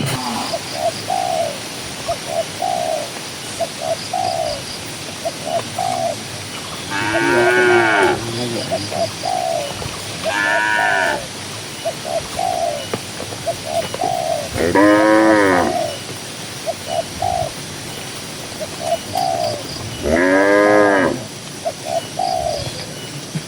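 Cattle mooing four times, each moo about a second long with a rising-then-falling pitch, over a steady background of short repeated bird calls roughly once a second.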